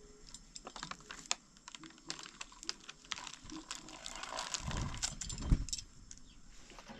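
Irregular small clicks and taps, as of hands handling objects, with a low rumbling knock about four and a half seconds in and one sharp thump near five and a half seconds.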